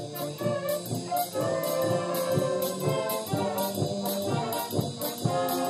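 Live brass instruments, trombones and trumpets, playing a tune in held, changing notes.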